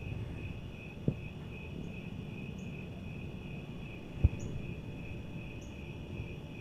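Insect chirping in a steady, even pulse, about four chirps a second, over a low rumble. Two sharp knocks come about one second in and about four seconds in, the second much louder.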